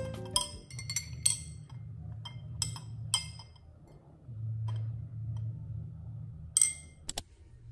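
Glass straw clinking against the inside of a drinking glass as a drink is stirred: about six sharp, ringing clinks at uneven intervals.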